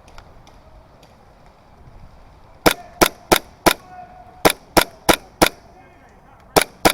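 Airsoft gun firing ten sharp shots in three quick strings: four, then four, then two, at about three shots a second.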